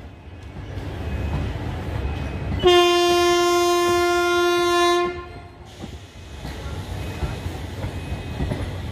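Train horn sounding one long steady blast, about two and a half seconds long, a few seconds in. Underneath it the wheels of the passing DEMU coaches rumble on the track, and the clatter carries on after the horn stops.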